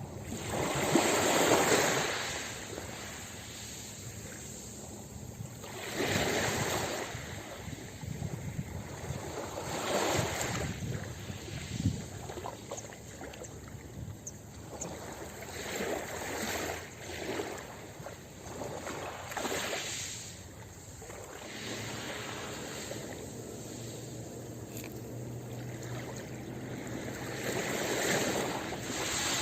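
Ocean surf breaking on a beach: surges of rushing water every few seconds over a continuous wash, the strongest about a second in.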